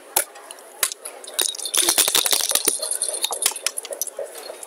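Backgammon dice shaken in a dice cup and thrown onto the board: a dense run of rattling clicks and clatter from about one and a half to three seconds in, with a few single sharp clicks before and after.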